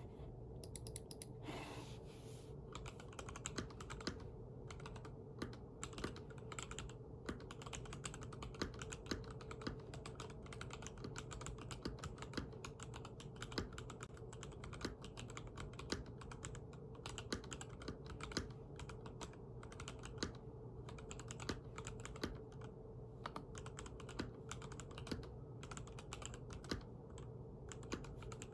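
Typing on a stock Mojo68 mechanical keyboard with TTC Gold Pink linear switches: a continuous, irregular run of keystrokes, with a few louder strokes standing out.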